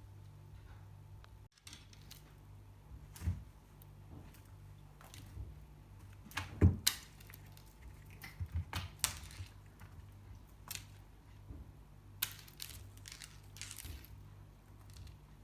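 Scattered light knocks, clicks and scuffs, with a louder thump about six and a half seconds in, over a steady low hum.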